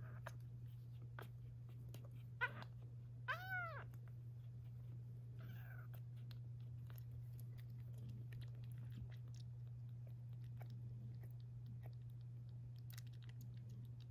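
Young kitten meowing: one short high call that rises and falls about three seconds in, and a fainter call a couple of seconds later. Small clicks run throughout over a steady low hum.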